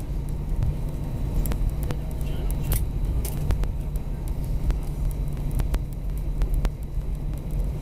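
Cabin noise inside an Airbus A320 taxiing after landing: a steady low rumble of the aircraft rolling with its CFM56 engines at idle, broken by scattered small clicks and knocks.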